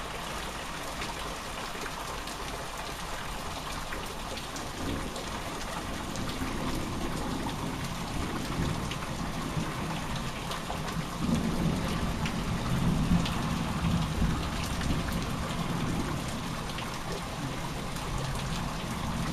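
Steady rain pattering, with a long low rumble of thunder rolling in about halfway through and dying away a few seconds later.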